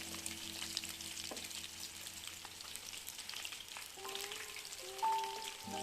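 Breaded chicken tenders frying in hot oil in a pan: a steady sizzle with many small crackles. A few soft held notes of background music sound under it.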